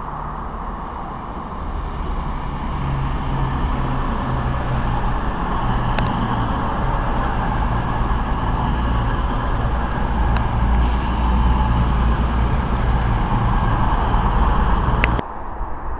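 CrossCountry Voyager diesel multiple unit passing through on the far line, its underfloor diesel engines running with a low hum under the rumble of the wheels. The noise grows louder as the train goes by, with a few sharp clicks, then cuts off suddenly near the end.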